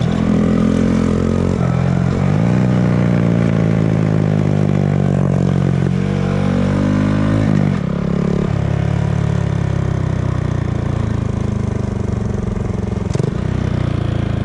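Small 125 cc single-cylinder motorcycle engine revving up and down. The pitch climbs and falls back about eight seconds in, then the engine runs on more steadily.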